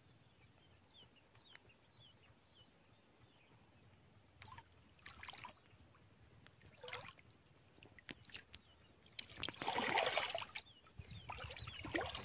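Water sloshing and splashing as a hand moves through shallow river water and weeds. There are a few short splashes from about four seconds in, and a longer, louder slosh a little before ten seconds.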